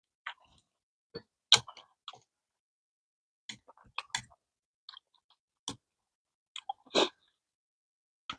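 Close-up eating sounds: soft chewing and mouth noises of noodles with seaweed and kimchi, with light clicks of wooden chopsticks against a ceramic bowl. The sounds come in short, scattered bits, the loudest about a second and a half in and again around seven seconds.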